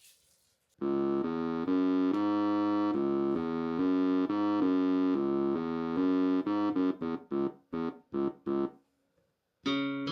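Suzuki Omnichord OM-108 playing an electric-piano-like voice: held chords that change about every half second, then shorter and shorter stabs. After a short gap, a new voice begins near the end with plucked notes that ring and die away.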